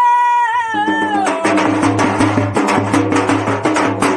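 A Marathi devotional song: a male singer holds a long high note that slides down about a second in, then the accompaniment takes over with fast, rhythmic drum strikes over a steady low drone.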